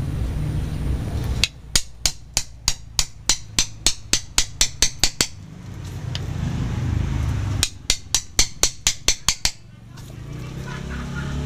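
Wooden mallet tapping the back of a knife blade driven into the base of an anting putri (Wrightia religiosa) bonsai trunk to split it. There are two runs of quick, light, sharp taps at about five a second: a long run of about twenty and, after a short pause, a shorter run of about ten. A low rumble runs underneath.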